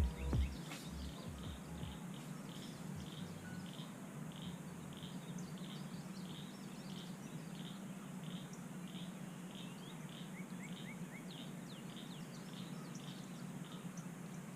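Quiet lakeside ambience: a short high chirp repeated steadily about every two-thirds of a second, with a few quick bird chirps about ten seconds in, over a faint low hum.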